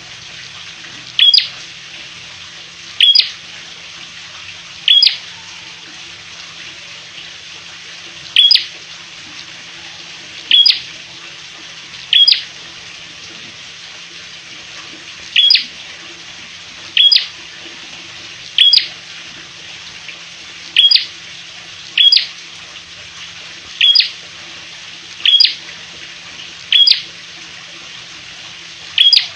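A caged prenjak merah, a small rufous-headed prinia-type songbird, calling over and over: a short, sharp call with a quick drop in pitch, repeated every one to three seconds, about fifteen times, with a longer pause near the middle. A steady hiss runs underneath.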